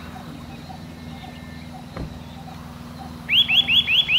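A bird calling a quick run of about seven sharp, upward-hooked notes near the end, over a steady low hum and a faint note repeating about twice a second. A single thump about two seconds in.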